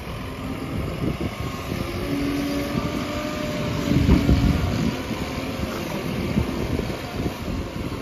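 Tata Hitachi Shinrai backhoe loader's diesel engine running as the machine drives past with a full front bucket of soil, loudest about four seconds in.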